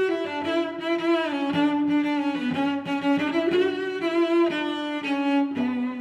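Background music: a melody of sustained notes that step up and down in pitch, with a low line underneath.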